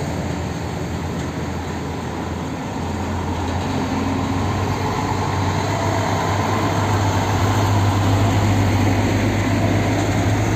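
Nissan Diesel container truck driving past: a steady low diesel engine hum with road noise, getting louder about halfway through.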